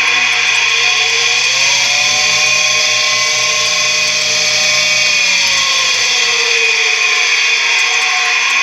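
Tempstar furnace draft inducer motor running with a loud, high-pitched whine from its bad bearings. Its pitch rises about two seconds in, holds, then sinks again a few seconds later.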